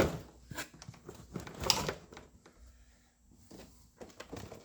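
Scattered clicks and knocks of hand work on a car dashboard: tools, screws and plastic parts being handled. There is a sharp knock at the start and another loud one just under two seconds in, then only faint ticks.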